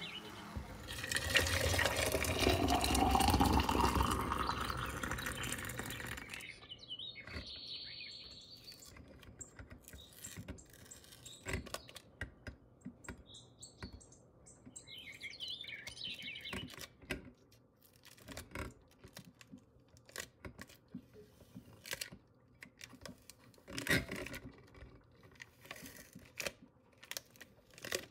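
An immersion blender runs in a stainless steel saucepan of puree for about five seconds, its whine rising in pitch. Then comes a quieter stretch of small water sounds and scattered taps and clicks as a glass jar is handled in a steel sink and its soaked paper label is peeled off.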